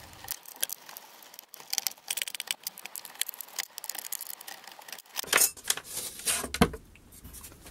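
Bolts and clamps being undone by hand to free a plywood sheet from a CNC router bed: a run of small metal clicks and rattles, then a few louder knocks and scrapes about five seconds in as the sheet is handled.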